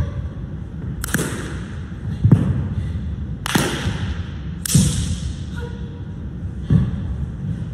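Five sharp impacts about a second apart from a Changquan performer's feet and hands on a carpeted competition floor: stamps, landings and slaps, each echoing briefly in a large hall, over a steady low hum.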